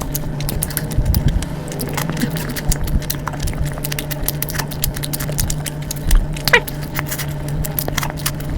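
Close-up eating sounds: a dense run of small clicks and crunches of chewing over a steady low hum, with a short falling squeak about six and a half seconds in.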